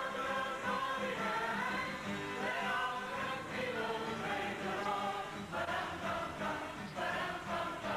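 A group of young people singing a worship song together, with a steady low beat under the voices.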